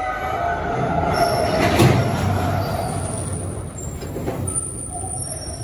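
Norfolk Southern welded-rail train's loaded flatcars rolling past, their steel wheels squealing in thin high tones over a low rumble. There is a loud metallic clank about two seconds in.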